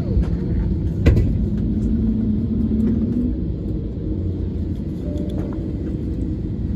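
Steady low rumble of an Airbus A320 passenger cabin on the ground, with one sharp knock about a second in.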